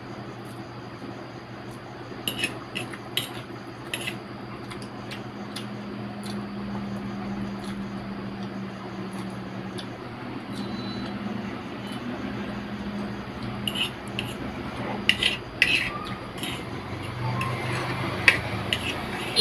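Metal fork clinking and scraping against a plate while noodles are twirled up and eaten. The sharp clicks come in two clusters, a few around two to four seconds in and more in the second half.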